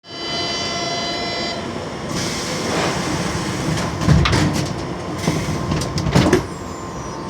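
Metro train's sliding doors knocking repeatedly as they try to close and fail, a door-closing fault. A steady high whine fades after about a second and a half, then a rush of noise builds, and near the middle a run of sharp knocks and thuds follows.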